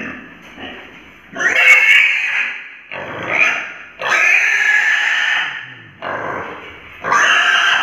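Piglet squealing in a series of about five loud, shrill screams, the longest about a second and a half, as it is held down and castrated.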